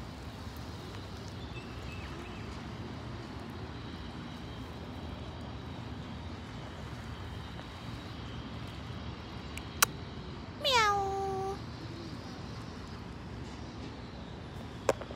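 A stray cat meows once, about eleven seconds in: a single call that falls in pitch and then holds for nearly a second. A sharp click comes just before it and another near the end, over a steady low background rumble.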